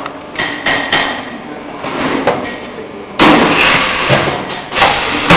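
Factory machinery striking metal again and again, with a steady machine hum underneath; the clatter gets louder about three seconds in.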